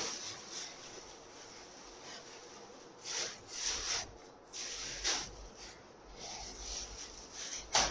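Plastic garment packaging rustling and crinkling in several short bursts as it is handled.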